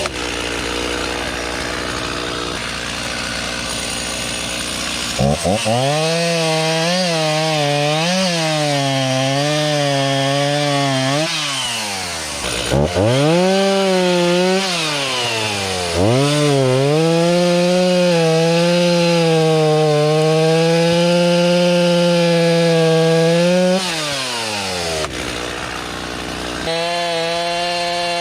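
Chainsaw cutting firewood: the engine revs up to full throttle, its pitch wavering and dipping as the chain bites into the wood, then drops back toward idle between cuts, several times over.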